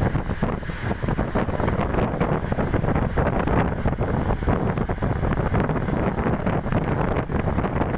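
Wind buffeting the microphone: a loud, gusty rumbling rush with no let-up.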